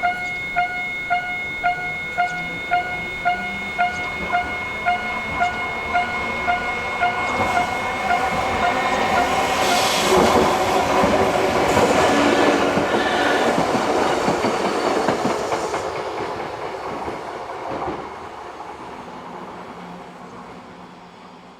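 Japanese level-crossing alarm ringing its repeated 'kan-kan' tone about twice a second, then a train passing over the crossing, loudest about ten to twelve seconds in, and fading away as it leaves.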